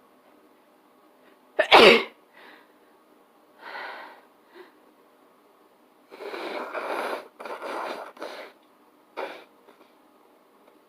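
A person sneezing: one sharp, loud sneeze about two seconds in, followed by several quieter breathy bursts, including a longer run of them in the second half.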